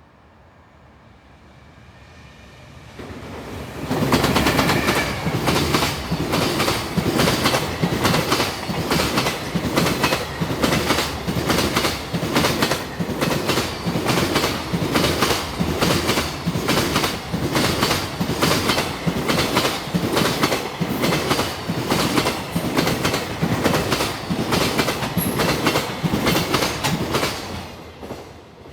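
Fully loaded container freight train hauled by an EF210 electric locomotive passing at speed, its wheels beating a rapid, regular clickety-clack over the rail joints. It swells in over the first few seconds and cuts off sharply near the end as the last wagon goes by.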